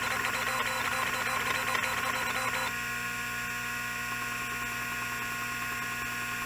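Opened computer hard disk drive running: the spindle motor spins the platter with a steady whine of several high tones. A busier, rattly layer from the read/write head arm seeking across the platter stops sharply a little under three seconds in, leaving the steady whine.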